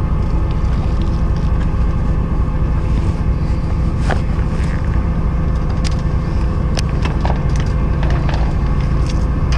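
Fishing boat's engine running steadily with a low, even hum, with a few short clicks and taps from handling the rod and reel.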